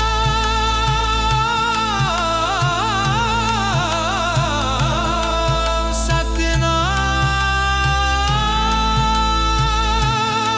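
Sikh devotional kirtan music: long held melodic notes, with a passage of quickly wavering, ornamented pitch in the middle, over a steady low beat.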